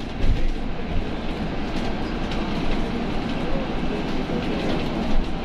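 Steady running rumble of a bus in motion, heard from inside the cabin: engine and road noise with a light rattle.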